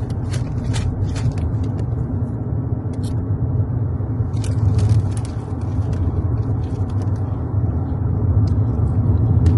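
Steady low rumble of a car heard from inside the cabin, with a few short clicks scattered through it.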